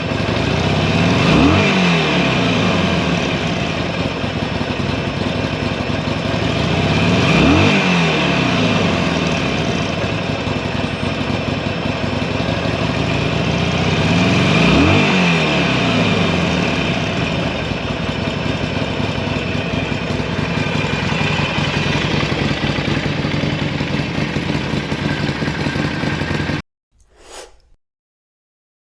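Harley-Davidson Sportster Forty-Eight's air-cooled 1200 Evolution V-twin idling, with three quick throttle blips about six seconds apart, each a sharp rise and fall in pitch. The engine is shut off near the end, and there is one short faint sound after it.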